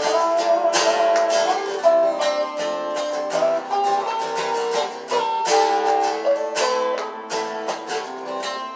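Acoustic guitars playing an instrumental break in a folk tune: a picked lead melody over a strummed rhythm.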